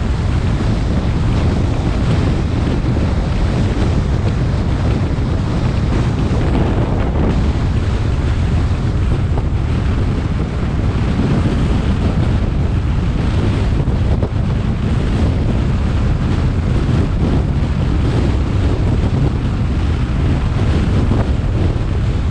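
Steady wind rushing and buffeting over the microphone of a camera on a car moving at road speed, with road noise underneath.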